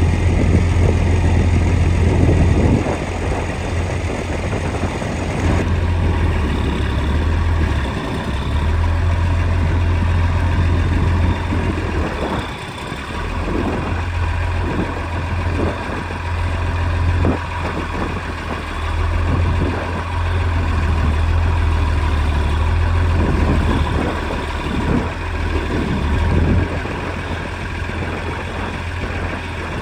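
Large truck engine running steadily at low revs, a deep continuous hum.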